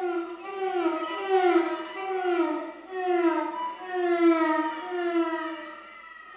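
Violin playing a repeated falling glide, about once a second, each note sliding down in pitch with a ringing tail, in an ambient piece.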